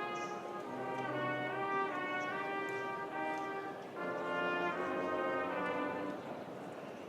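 Brass band playing a cofrade march: sustained brass chords that move every half second to a second, easing off briefly about four seconds in and softening near the end.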